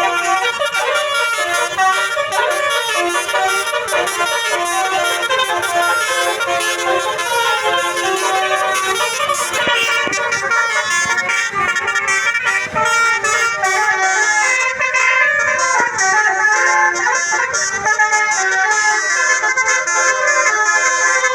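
Telolet basuri bus horn, a set of multi-trumpet air horns, playing a continuous fast tune of stepped notes.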